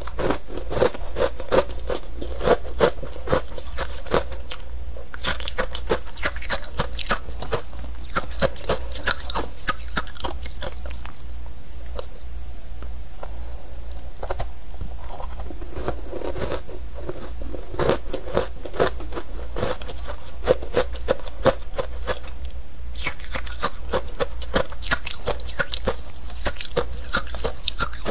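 Soft ice dusted with matcha powder being bitten and chewed: dense, rapid crunching, thinning out for a few seconds about halfway through, then picking up again.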